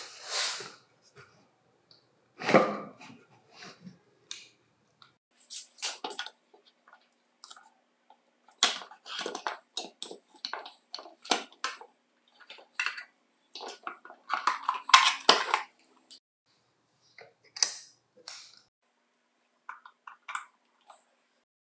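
Irregular clicks, knocks and light rattles of plastic parts being handled and fitted together: an electric pencil sharpener's motor mount, battery pack and plastic gears going into its plastic case.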